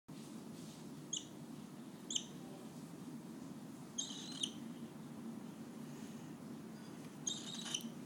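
Cockatiel giving soft, high-pitched chirps: two brief peeps about a second apart, then two longer chirping calls around the middle and near the end.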